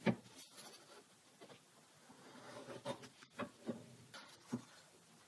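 Bench metal shear's moving blade closing on a sheet of typing paper, slicing it: a click just after the start, then a run of short crisp snips about three to four and a half seconds in. The paper cuts cleanly without tearing, a sign the blades are sharp.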